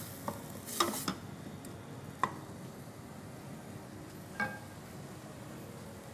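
Onions frying in butter in a stainless-steel pot, a low steady sizzle, while a wooden spoon stirs them and knocks against the pot a few times.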